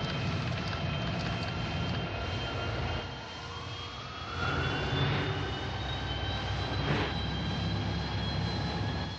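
Spinning centrifuge trainer: a low rumble under several steady high whining tones. About three seconds in, one whine rises in pitch as the speed is turned up, and the rumble then grows louder, with brief sharp swells near five and seven seconds.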